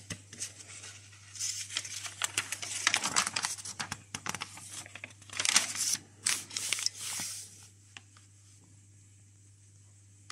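Pages of a thin paper instruction booklet being turned and smoothed flat by hand: dry paper rustling and crinkling in irregular bursts for several seconds, stopping about three-quarters of the way in.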